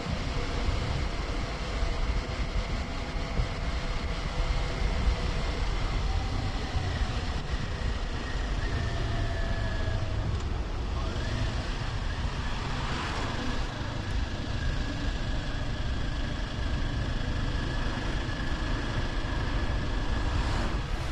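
Kawasaki Ninja 400's parallel-twin engine running at a steady cruise, under heavy wind noise on the camera's microphone. The engine note eases down slightly until about ten seconds in, then holds steady.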